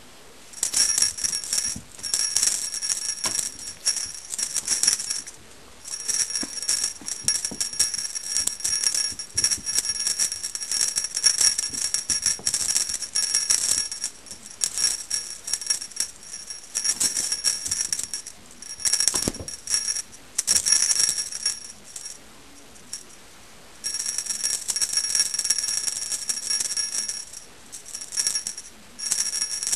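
Small bell on a wand cat toy jingling in shaky bursts as a kitten bats and tugs it, with short pauses between the bursts.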